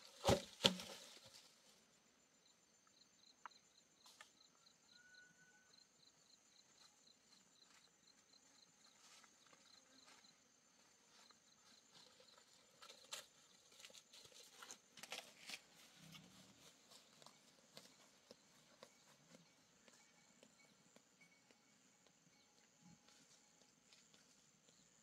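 Two sharp chopping strikes into wood just at the start, then near quiet with faint rustling of brush, scattered snaps of twigs, and a faint high, rapid chirping.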